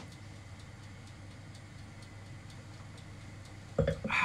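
Quiet kitchen room tone with faint, regular ticking, and a short louder sound near the end.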